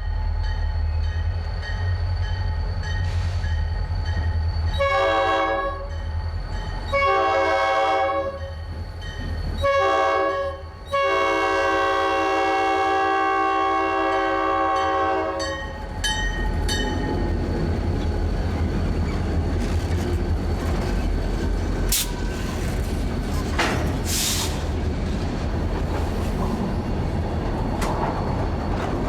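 EMD diesel locomotive sounding its multi-tone air horn in the grade-crossing pattern: two long blasts, a short one, then a long one held about four and a half seconds, over the steady rumble of the engine. The train then rolls past with engine and wheel noise and a couple of brief sharp squeals.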